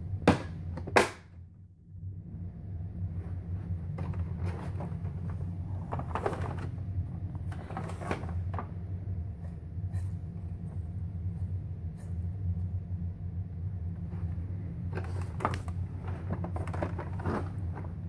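Two sharp plastic clicks about a second apart as the front grille on a Hoover WindTunnel upright vacuum's bag compartment is snapped into place. After that come scattered plastic knocks and rattles as the vacuum is handled and tipped back, over a steady low hum.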